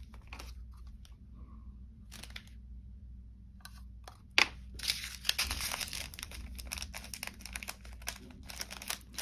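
Small plastic bags of diamond-painting drills crinkling and rustling as they are handled, with a few light clicks and taps. After a sharp tap about four seconds in, the crinkling becomes busy and continuous.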